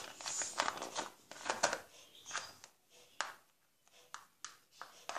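Faint handling noises of hands working with slime-making materials: scattered small clicks, taps and rustles.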